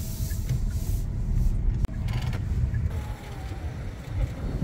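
Low road and engine rumble of a car driving, heard from inside the cabin. It cuts off abruptly about two seconds in and gives way to a similar steady low rumble.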